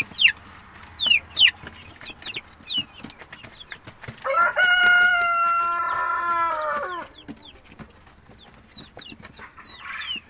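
A rooster crows once, a long call of about three seconds starting roughly four seconds in. Around it, young chicks peep continuously in quick, high, falling chirps.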